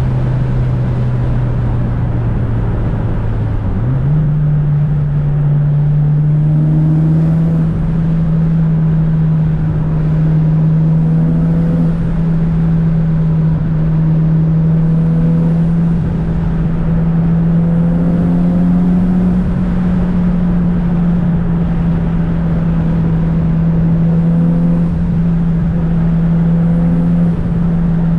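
Tuned 400 hp Mitsubishi Lancer Evolution VIII's turbocharged four-cylinder engine droning steadily under way. About four seconds in its pitch steps up, then holds and creeps slightly higher.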